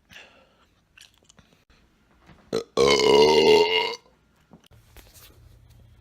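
A person belching: one loud, drawn-out burp lasting about a second, a little under three seconds in, just after a short click.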